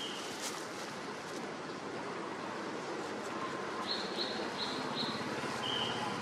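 Small bird chirping outdoors over a steady background hiss: four short high chirps about four seconds in, then one slightly lower, longer note near the end.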